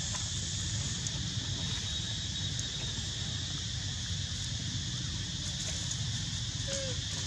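Steady outdoor background of hiss and low rumble, with a single brief, faint, falling squeak about seven seconds in.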